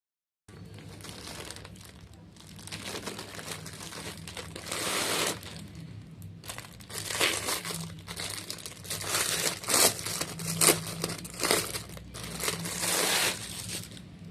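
Packaging crinkling and rustling in irregular bursts as a parcel is handled and unwrapped, louder and busier in the second half.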